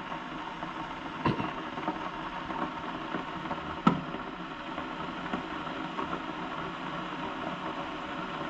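Coffee maker running with its back panel off, giving a steady hiss, with a sharp click about a second in and another about four seconds in.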